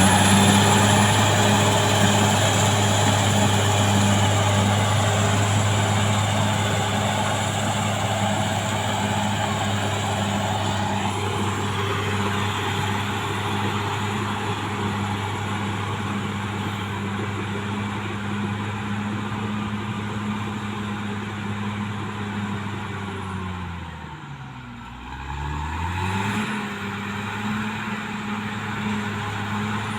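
CAT D6R XL bulldozer's diesel engine running at high revs with a steady drone. About 24 seconds in, the revs drop sharply and climb back within a couple of seconds.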